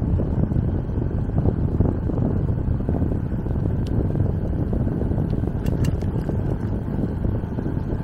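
Steady wind rushing over the microphone of a camera on a moving electric bicycle, a low, even rumble, with a couple of faint ticks near the middle.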